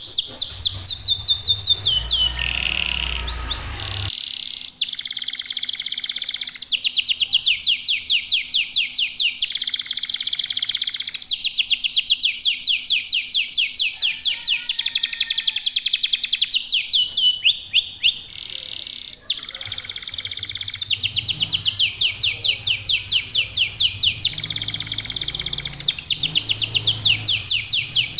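Local domestic canaries singing: long runs of rapid, high trills, each run lasting a few seconds, with short breaks between them.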